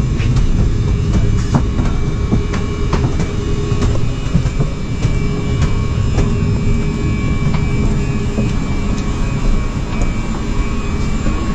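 Airbus A380 cabin noise: a steady low rumble of engines and airflow, with scattered light clicks and knocks.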